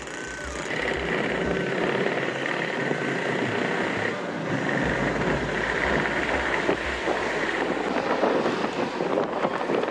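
Riding a motor scooter in town traffic: the engine running under a steady wash of road and traffic noise, with wind gusting on the microphone. A high steady whine sounds through most of it and drops away near the end.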